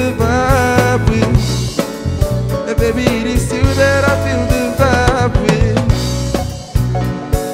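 Live band music: a male vocalist singing into a microphone over electric guitar, bass guitar, keyboard and drum kit.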